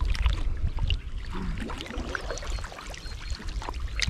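Water sloshing and splashing in irregular short splashes, over a steady low rumble of wind on the microphone.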